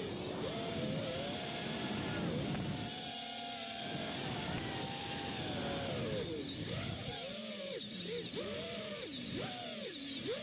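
FPV drone's electric motors and propellers whining over a rushing propeller-wash noise, heard from the onboard camera. The pitch stays fairly level at first, then from about six seconds in it swings up and down rapidly as the throttle is worked.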